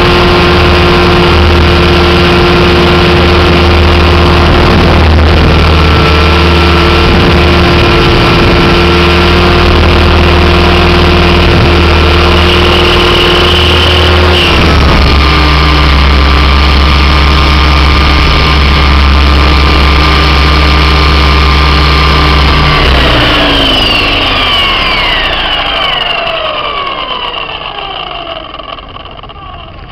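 Thunder Tiger Mini Titan E325 electric RC helicopter's motor and rotor whine, running steadily and shifting pitch about halfway through. From about three quarters in, it winds down with falling pitch and fades away as the rotor slows to a stop.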